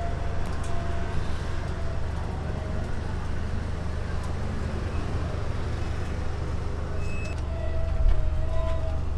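Steady low mechanical hum, like an idling motor, under outdoor street noise, with a short high beep about seven seconds in.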